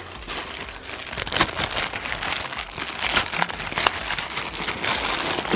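Clear plastic zip-lock bag crinkling and rustling as it is handled and pulled at, a continuous crackle with sharper crackles scattered through it.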